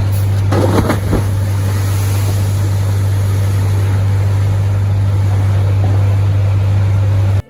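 A large engine running steadily with a deep, even hum, with a few knocks about a second in; it cuts off abruptly near the end.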